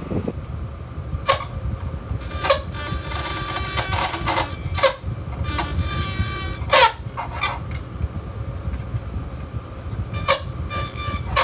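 Electric fan running with a small pen pushed inside it, the spinning blades catching the pen so that it buzzes and rattles in irregular bursts over the fan's steady hum, a sound likened to dubstep. Some bursts are brief, others last a second or two.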